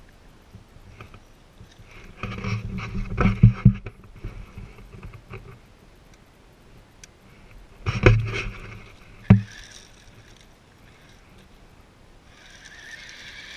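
Electric motor and rubber tracks of an RC crawler truck grinding in two short bursts on a loose dirt slope, with gravel scraping and several sharp knocks.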